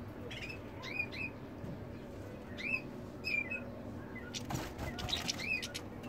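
Caged European goldfinches giving short, high chirping calls, scattered irregularly, with a few faint knocks in the second half.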